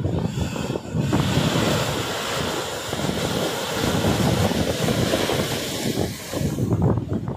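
Surf breaking and washing up the beach, with gusts of wind buffeting the microphone. The surf's rush swells about a second in and eases near the end.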